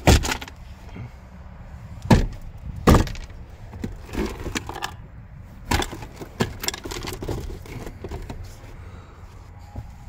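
A string of sharp knocks and clunks from plastic interior trim being handled in a pickup's cab, with the loudest near the start and about two and three seconds in.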